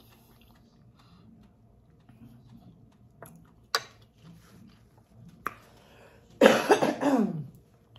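A woman coughs, loudly, in a burst of about a second starting some six and a half seconds in, after a quiet stretch broken by a couple of sharp clicks.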